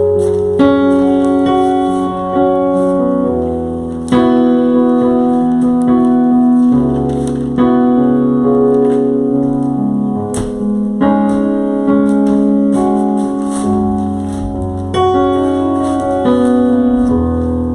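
Slow keyboard music in a piano sound: sustained chords, with a new chord struck every few seconds and each one left to ring.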